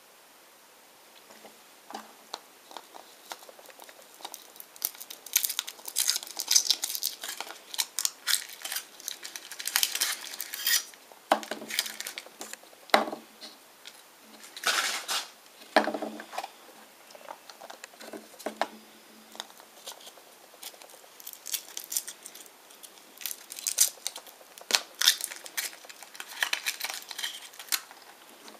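Kinder Surprise eggs being unwrapped and opened by hand: foil wrappers crinkling and tearing in bursts, with sharp clicks and knocks of the plastic toy capsules.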